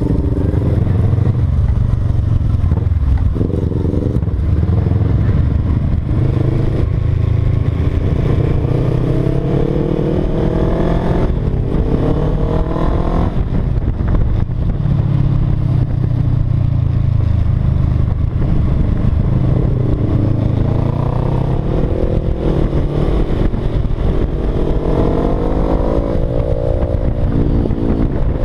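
Motorcycle engine heard from the rider's seat while riding, running loud and steady. Its pitch climbs and falls back several times as it accelerates and shifts gear.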